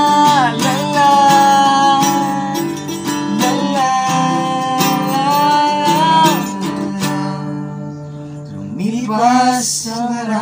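Acoustic guitar strummed steadily under voices singing a Tagalog song in long held notes. Near the end a voice sings with a wavering vibrato.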